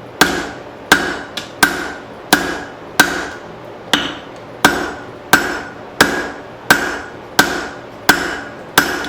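Heavy blacksmith's hammer striking steel leaf spring on an anvil to draw it out, about thirteen evenly paced blows roughly one every 0.7 seconds, each followed by a short metallic ring, with a lighter tap or two between blows.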